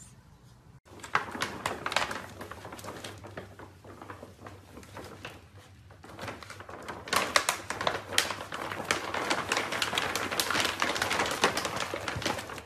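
Crinkling and rustling of a foil-lined bag as puppies push their heads into it and tug at it: a dense run of fine crackles that gets busier and louder about halfway through.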